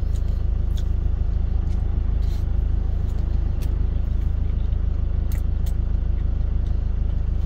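Truck engine idling, a steady low rumble heard from inside the cab, with a few faint clicks of chewing on top.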